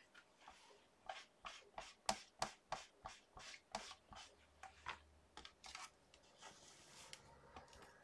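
A quick run of light taps and clicks, about three a second, from fingers working clear acrylic stamps on a stamping platform, fading to soft rubbing after about five seconds.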